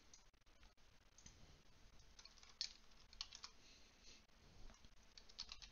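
Faint clicking of a computer keyboard and mouse: scattered single clicks and a few quick runs of three or four, as a stock ticker is typed in.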